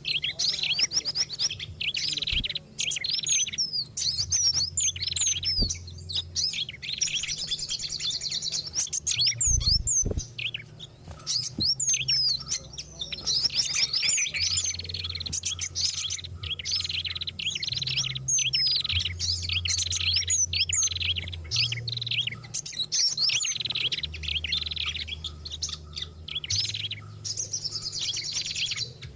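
Lure recording of several small songbirds calling over one another, with fast chirps, trills and sharp high notes in an unbroken stream. It is a combined bird-catching call of five species, including pied fantail and prinia, played to attract wild birds.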